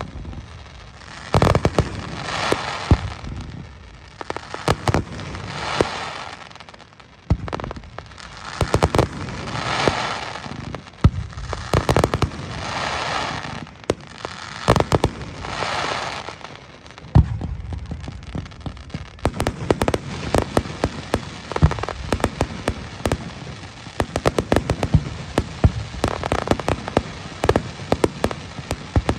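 Fireworks display: a rapid series of shell bursts, sharp bangs mixed with swells of rushing crackle. In the last third the reports come thick and fast as a dense crackling barrage.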